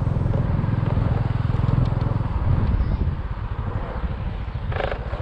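Small motorcycle engine running steadily under way, its rapid low pulsing continuous, with rushing wind and road noise over it.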